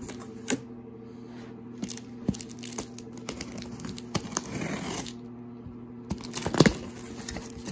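Scissors slitting packing tape on a cardboard box, with cardboard flaps rustling and scraping and a few sharp clicks and snaps, the loudest snap about two-thirds of the way in.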